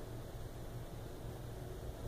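Quiet room tone: a steady low hum with a faint hiss.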